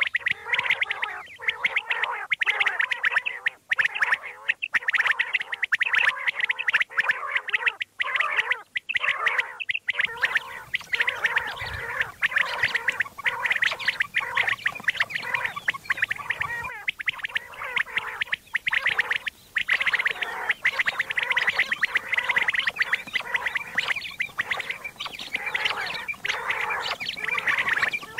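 Recorded common quail calls, of the kind played to lure quail: dense, rapid calling with no break. The background of the recording changes about ten seconds in.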